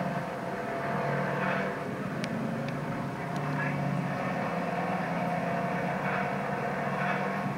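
Television sound playing in the room: a steady drone with a voice talking over it.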